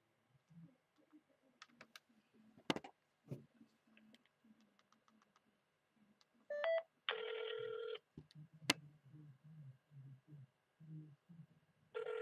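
A phone call being placed on speaker: a few sharp clicks, then a short run of stepped beeps about six and a half seconds in, followed by the ringback tone, one ring of about a second and the next starting at the very end.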